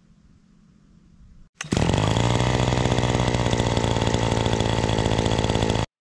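A small engine running at a steady high speed, cutting in abruptly about one and a half seconds in and stopping just as abruptly near the end.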